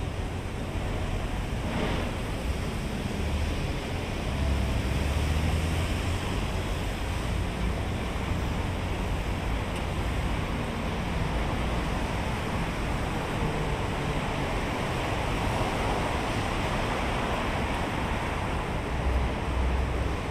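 Steady rushing outdoor noise, with low rumbling buffets of wind on the microphone about four seconds in and again near the end.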